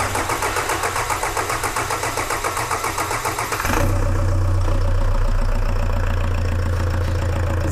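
Kia Sorento's D4CB 2.5-litre four-cylinder common-rail diesel being cranked by the starter with a rhythmic pulsing. Just under four seconds in it catches, and it settles into a steady idle. A ticking is heard in it from the new hydraulic lash adjusters pumping up and setting valve clearance.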